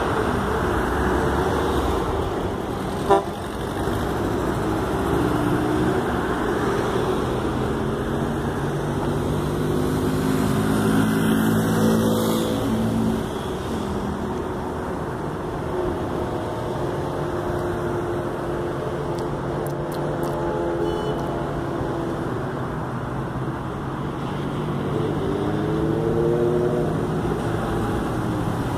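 Steady road traffic on a busy highway, engines and tyres passing, with long held horn tones sounding through the middle and a bending horn or engine tone near the end. One sharp click about three seconds in.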